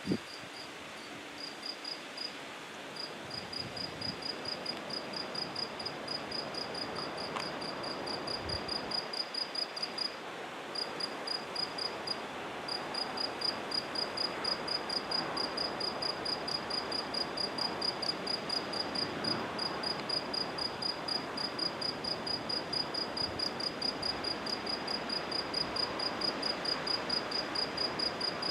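A cricket chirping in a steady, even rhythm of about four high-pitched chirps a second, with a couple of brief pauses, over a steady hiss of background noise.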